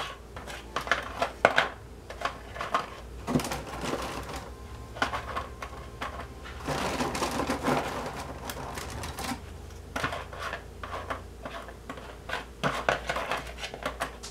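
Vanilla wafer cookies being dropped and set into a plastic mixing bowl, making many light clicks and taps. About seven seconds in, a stretch of rustling as a hand reaches into the cardboard wafer box.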